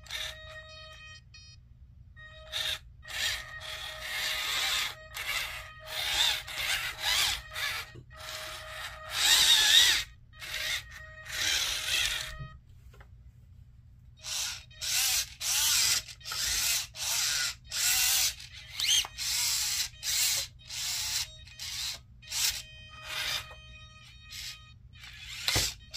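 Small electric drive motors and continuous-rotation servos of a radio-controlled Bobcat T590 tracked skid steer whirring in many short bursts, with a steady high electric whine between them, as the loader arm and bucket are worked. The bursts pause for about two seconds midway.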